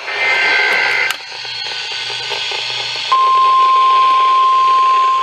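NOAA Weather Radio receiver hissing with static, the end of an Emergency Alert System data burst warbling out in the first second. About three seconds in, the steady 1050 Hz warning alarm tone comes on, which signals that a warning is about to be read out (here a severe thunderstorm warning).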